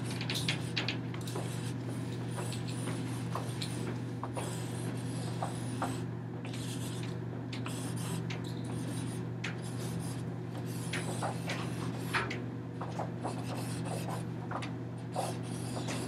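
Handling noise: irregular rubbing and rustling with many small clicks as the lower loops of a hanging lattice of strips are worked by hand, over a steady low hum.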